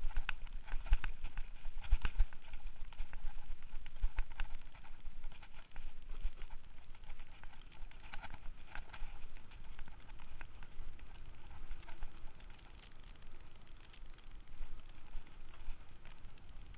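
Mountain bike rattling and clattering over a rough dirt trail, a dense run of irregular knocks from the bike jolting on the bumps. About five seconds in the knocks thin out, leaving a quieter, smoother rolling noise as the bike runs on pavement.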